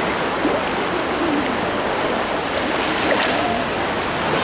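Shallow seawater lapping and splashing around people wading: a steady wash of water noise.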